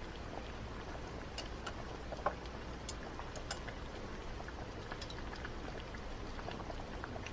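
Quiet background with a steady low hum and scattered faint light clicks and ticks, one slightly louder a little over two seconds in.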